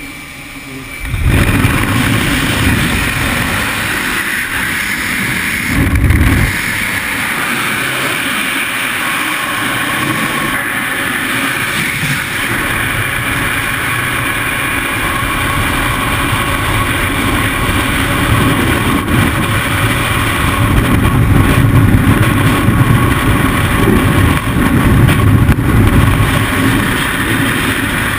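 Freefall wind rushing and buffeting hard on the camera's microphone. It starts with a sudden jump about a second in, as the camera leaves the aircraft door; the quieter, steadier plane noise before it gives way.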